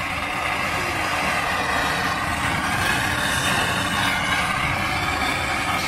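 Brazing torch flame hissing steadily against a copper refrigerant line, heating the filter-drier joint red-hot so the joint can be unsweated and pulled apart.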